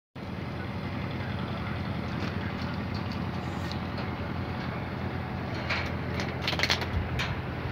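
A steady low engine drone, with a few sharp clicks or knocks between about six and seven seconds in.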